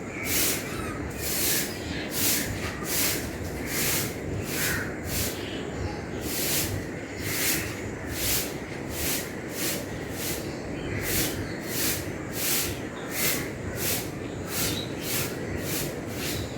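Broom sweeping the ground in steady, regular strokes, about one to two strokes a second, with faint bird chirps in between.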